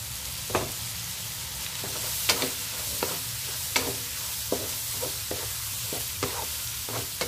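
Chicken, scrambled egg and fishballs sizzling in oil in a non-stick wok, stir-fried with a spatula that scrapes and knocks against the pan in irregular strokes over a steady sizzle.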